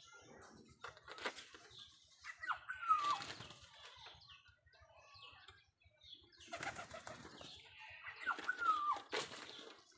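Domestic pigeons flapping their wings in several short bursts. A bird gives a short falling call twice, about two and a half seconds in and again near the end.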